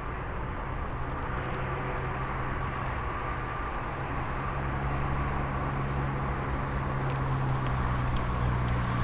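A steady, distant engine hum, like a passing motor vehicle, slowly growing louder.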